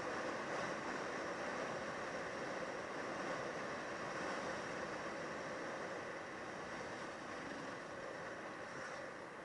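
Steady noise of a motorcycle on the move, engine and rushing air blending into an even hiss that eases off slightly near the end.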